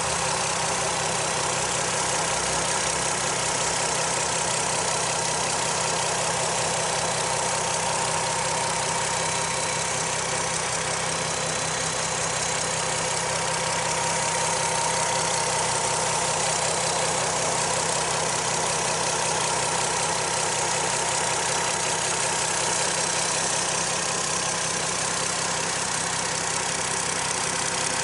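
Car engine idling steadily after a repair, heard close up in the open engine bay, with a faint steady whine running through it.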